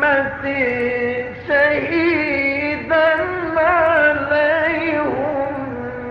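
Male voice in melodic mujawwad Quran recitation, drawing out long ornamented phrases with a wavering pitch and brief pauses for breath.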